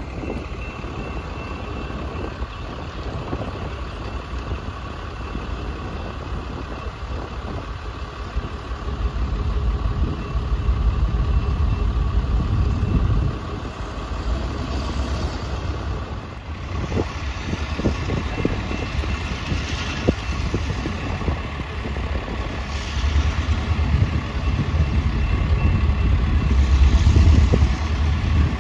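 Diesel locomotive of a passenger train running, a steady low engine rumble with a faint constant whine, swelling louder twice.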